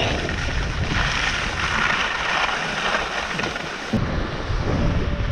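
Wind buffeting the microphone of a skier's action camera during a fast descent, with the hiss of skis running over groomed snow. About four seconds in the sound changes abruptly: the high hiss drops away and the low buffeting returns strongly.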